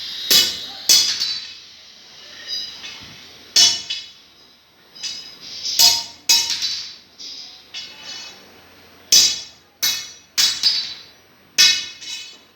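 A hammer striking steel, about ten sharp clangs at an irregular pace, each ringing briefly after the blow.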